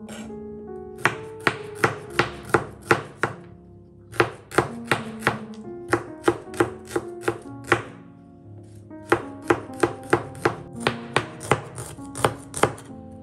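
Kitchen knife slicing shallots and garlic on a plastic cutting board: sharp knocks of the blade on the board, about three a second, in three runs with short pauses between them.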